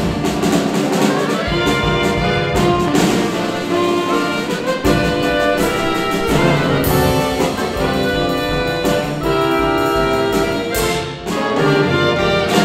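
Saxophone ensemble of soprano, alto, tenor, baritone and bass saxophones playing chords and melody together with a drum kit, with frequent drum strokes and cymbal wash under the sustained saxophone notes.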